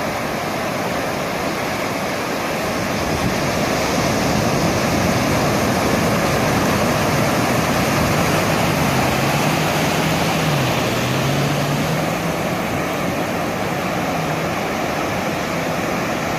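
Ocean surf breaking and foamy wash rushing in over the shallows at the water's edge, swelling a few seconds in and easing off near the end.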